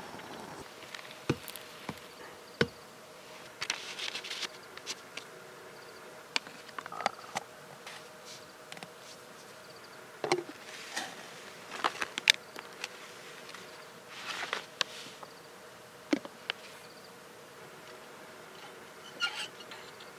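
Scattered light clinks, taps and clatters of stainless camp cookware and a plastic coffee press being handled, over a steady faint buzz.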